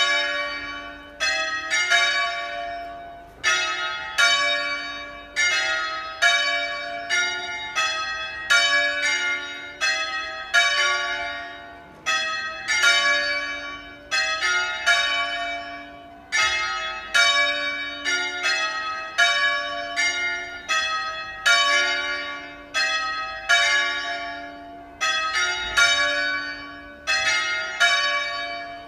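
The three smallest bronze bells of Crema Cathedral's ring, cast by Crespi in 1753 and tuned in D-flat, swinging full circle in the Italian 'distesa' style, calling to the weekday Mass. Their strokes overlap in a continuous, uneven peal, each stroke striking sharply and then ringing on.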